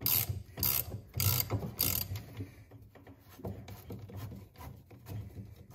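Socket ratchet clicking as it is swung back and forth to back off a 10 mm nut on an auger paddle bolt, the bolt held still with a screwdriver. There are four rasping strokes about half a second apart in the first two seconds, then fainter, lighter clicks.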